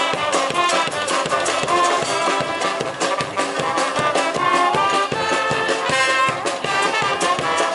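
Brass band music, with trumpet-like lines over a steady drum beat, playing a dance tune.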